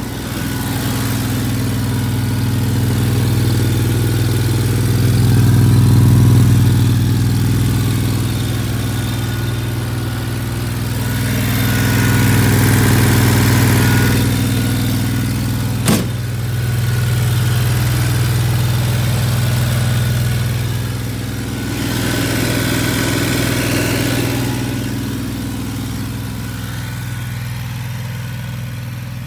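Husqvarna ride-on mower's Kawasaki FH-series 21 hp V-twin engine running at a steady speed, its loudness swelling and easing. One sharp click about two-thirds of the way through.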